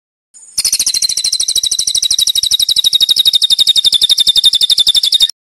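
A songbird's rapid, high trill of evenly repeated notes, more than a dozen a second, starting about half a second in and cutting off abruptly near the end. It is a harsh 'tembakan' (shot) phrase of the kind played in masteran recordings to tutor competition songbirds.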